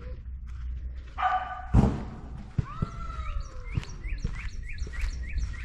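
An animal calling, one long falling call among them, with a loud thump about two seconds in and soft steps over grass and leaves.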